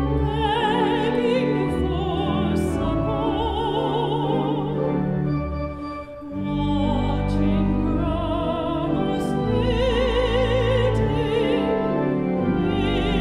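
Mezzo-soprano singing with a wide vibrato over held organ chords. Voice and organ break off briefly between phrases about six seconds in, then carry on.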